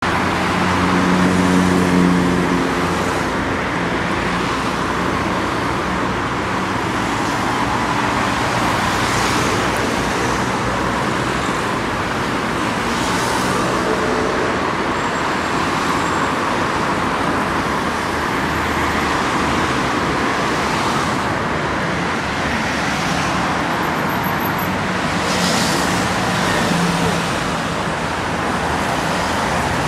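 Steady road traffic: cars and vans driving past on a busy multi-lane street, their engines and tyres blending into constant noise that swells as each vehicle goes by, loudest as an engine hum passes close about one to two seconds in.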